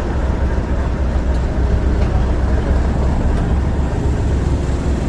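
Heritage diesel locomotive engine running at a steady low rumble.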